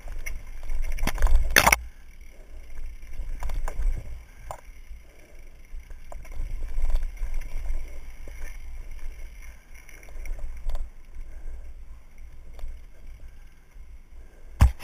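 Mountain bike descending a dirt trail, heard from a helmet-mounted camera: steady wind rumble on the microphone with tyre noise and the bike rattling and knocking over bumps. A loud clatter comes about a second and a half in, and a sharp knock just before the end.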